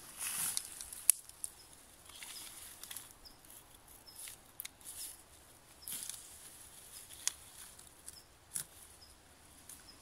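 Rustling of low bilberry shrubs as berries are picked by hand, broken by scattered sharp clicks. The loudest click comes about a second in.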